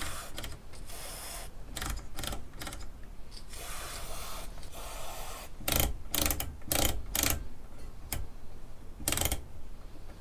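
Short hisses of an electrical-lube aerosol spray, then a run of sharp clicks as the valve radio's multi-gang rotary wave-band switch is worked back and forth through its positions.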